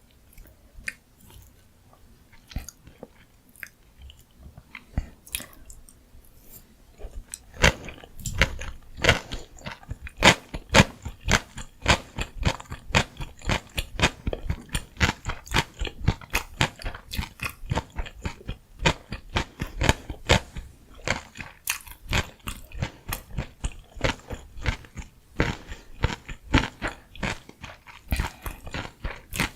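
Close-miked eating of gimbap (Korean seaweed rice roll): a few soft mouth clicks at first, then from about a quarter of the way in, steady chewing with rapid, dense clicks several times a second.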